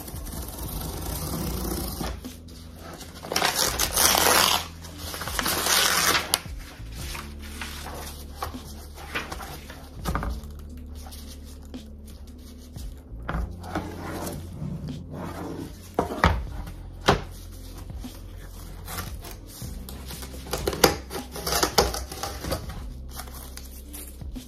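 Paper backing being pried and torn off the back of a picture frame by hand: two loud rustling, tearing bursts about four and six seconds in, then scattered clicks and knocks of handling the frame.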